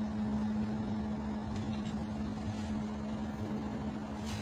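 Freight train rolling past: a steady rumble of the wagons on the rails with a constant hum.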